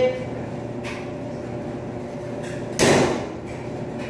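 Steady machine hum in a laundry room, with one loud sudden knock about three seconds in that dies away over half a second, of the door kind.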